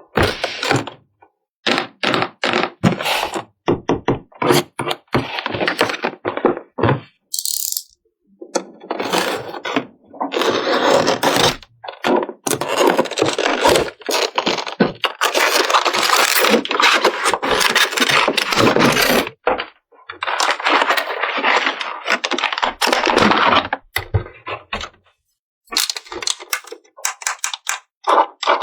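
Small hard plastic toy pieces and packaging being handled: quick runs of clicks and clacks, then a long stretch of dense rattling and scraping, then scattered clicks again near the end.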